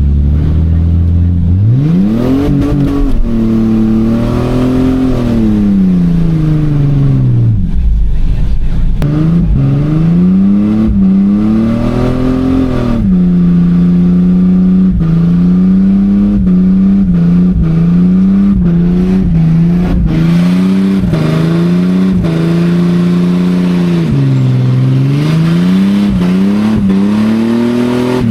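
Ford AU Falcon wagon's engine revving hard during skids. The revs sweep up and down several times, then are held high for about ten seconds with small dips, drop once, and climb again near the end.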